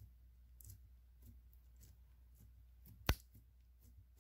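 Clear glitter slime being pressed and flattened by hand: faint sticky clicks and crackles, with one sharp, much louder pop about three seconds in.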